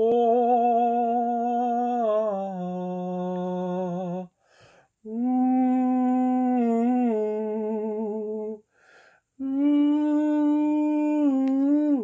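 A man humming a slow tune in three long held phrases, each stepping down in pitch partway through, with a short breath between phrases.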